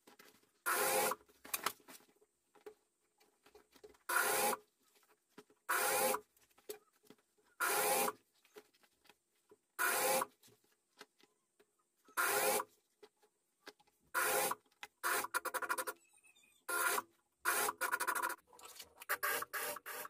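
Single-needle sewing machine stitching a zipper into a leather jacket in short runs of about half a second, stopping for a second or two between each. Near the end the runs come in a quicker string of brief spurts.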